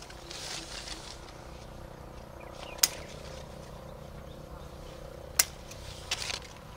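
Pruning shears snipping through guava stems: two sharp clicks about two and a half seconds apart, with brief rustling of leaves as the fruit is handled.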